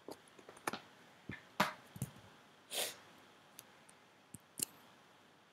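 Faint scattered clicks and small knocks of handling at a computer desk, with one short breathy rush of noise a little before the three-second mark.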